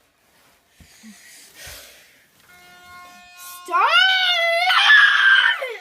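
A toddler screaming "Stop!" in upset protest: one shrill, drawn-out cry starting a little before four seconds in and lasting about two seconds. A faint steady tone sounds underneath.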